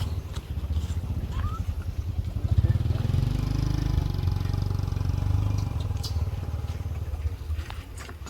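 A motor vehicle engine running, a low pulsing rumble that rises in pitch about three seconds in.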